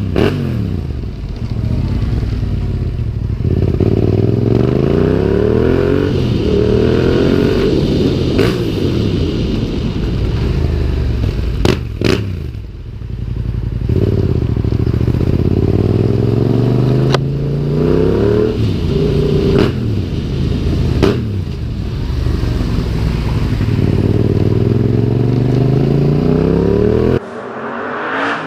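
Yamaha MT-07's 689 cc parallel-twin engine through an Akrapovic carbon exhaust with the dB killer fitted, accelerating through the gears: its pitch rises again and again and drops back at each gear change. A few sharp cracks come through along the way.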